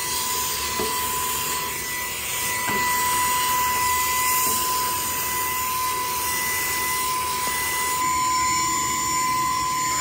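Saker cordless mini handheld vacuum cleaner running with a brush attachment: a steady high-pitched motor whine over the rush of air as it sucks up dust.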